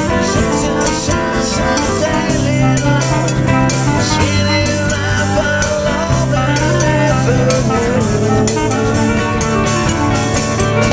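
Live band playing a song, with guitar, drums and a singing voice.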